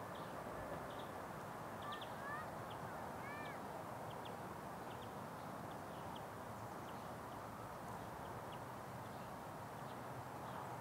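Faint bird chirps over a steady low rush of outdoor background noise: short high peeps scattered throughout, with a few rising-and-falling whistled notes about two to three seconds in.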